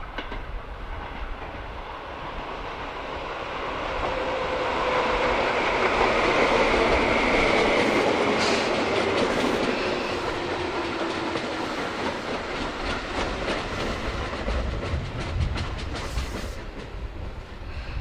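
A Tobu electric train passing by. It grows louder to a peak about six to eight seconds in, with a whine that falls in pitch as it goes past, then a quick run of wheel clicks over the rail joints near the end.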